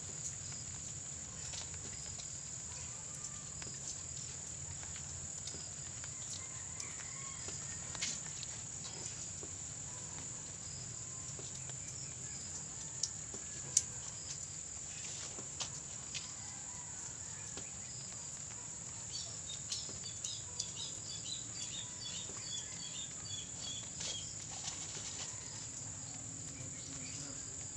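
A steady high-pitched insect chorus, like crickets, over a low background hum. A few sharp clicks come about halfway through, and a run of small ticks later on, from hands and a trowel working soil around the pots.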